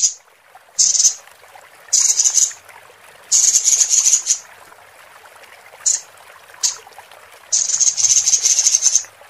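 Female robin's lure call, played to draw in a male: harsh, hissing high-pitched chatters in six bursts, each from a fraction of a second to about a second and a half long.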